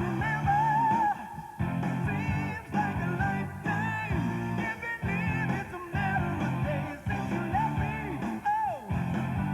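Rock music with singing and guitar laid over the footage.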